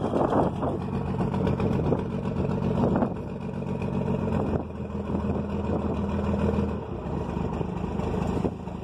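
Cummins inline-six turbodiesel running through an exhaust made from house gutter, idling with its engine speed stepping up and down a few times.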